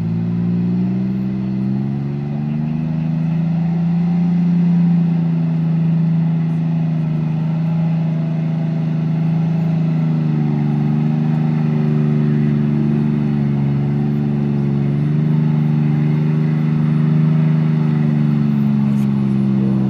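Steady motor hum made of several close pitches that rise at the start, hold, and step up slightly about ten seconds in.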